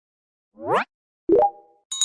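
Two short cartoon-style sound effects: a quick rising "bloop" about half a second in, then a sudden plop that settles into a brief fading tone. A bell-like ringing starts just at the end.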